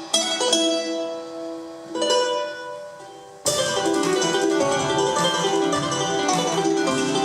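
A plucked-string duo on charango-family instruments playing a folk tune. A chord is struck and left to ring and fade, a second one follows about two seconds in, and about three and a half seconds in brisk rhythmic playing suddenly resumes.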